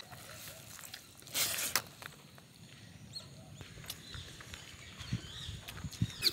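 Quiet outdoor ambience with faint, brief bird chirps. A short rustle comes about a second and a half in, and a few soft low knocks come near the end.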